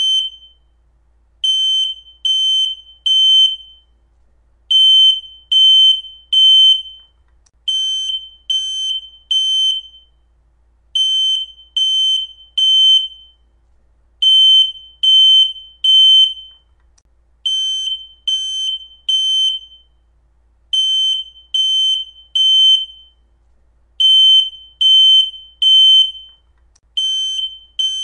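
Smoke alarm going off in full alarm. A high-pitched piezo beep sounds in groups of three, each beep about half a second long, with a new group roughly every three seconds. This is the temporal-three pattern that signals smoke detected.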